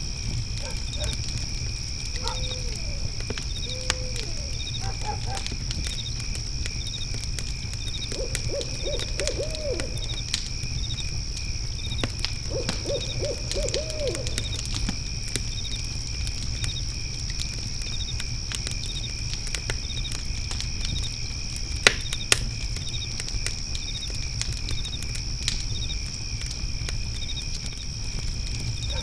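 Fire pit crackling under a steady high trilling of insects, with a cricket chirping about twice a second and a sharp pop from the fire about 22 seconds in. An owl hoots a few times early on and gives two quick runs of hoots, around 8 and 13 seconds in.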